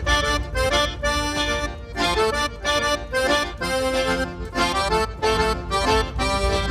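Instrumental break of a Brazilian piseiro/forró-style song: an accordion plays a quick melody over a heavy, bass-driven dance beat.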